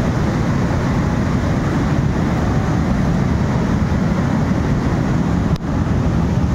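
Mudflow torrent rushing in flood: a loud, steady roar of churning muddy water and debris, heaviest in the low range.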